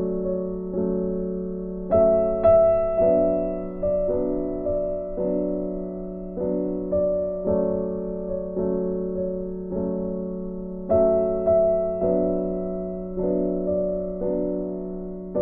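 Background music: slow, gentle piano or electric piano playing sustained chords, each note struck and fading.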